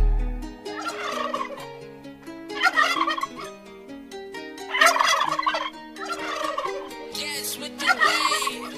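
Turkey gobbles, about five of them every one and a half to two seconds, over an instrumental beat's simple melody of held notes. A deep bass note dies away in the first half second.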